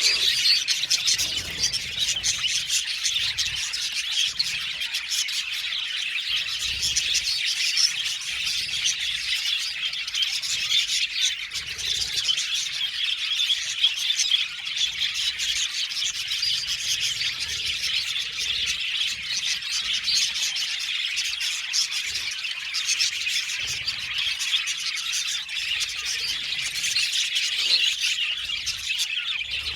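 A flock of budgerigars chirping and warbling together, a dense, continuous chatter of many overlapping high chirps.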